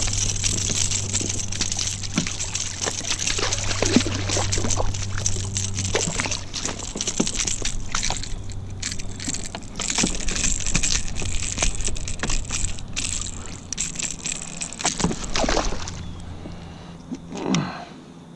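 Water sloshing and splashing around a kayak, with irregular sharp splashes. It quietens near the end.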